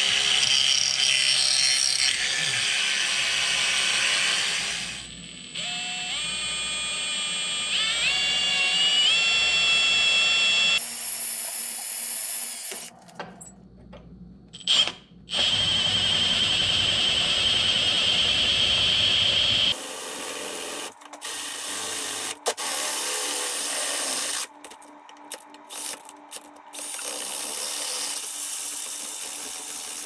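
Power tools running in short stretches that start and stop abruptly: a whine that speeds up in steps, a steady high whine, and rough stop-start running.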